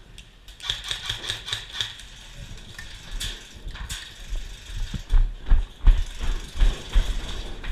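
A quick run of sharp clicks about a second in, then heavy rhythmic thumps of running footsteps jolting a body-worn microphone, growing louder in the second half.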